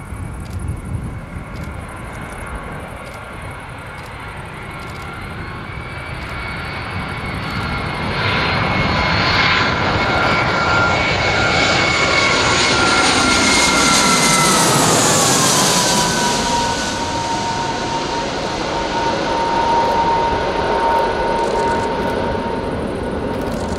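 Airbus A320-family twin-engine jet airliner on final approach passing low overhead. Its turbofan whine grows louder, and about fifteen seconds in it drops in pitch as the aircraft goes by, with a sweeping rush of noise. A lower, steady engine whine carries on as it moves away toward the runway.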